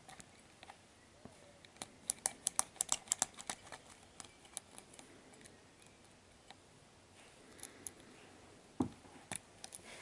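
Small sharp metallic clicks of a lock pick working the pins in the keyway of an ERA discus padlock: a quick run of about a dozen clicks a couple of seconds in, then scattered single ticks, with two louder clicks near the end. The round-tipped pick is slipping off a stubborn pin it cannot set.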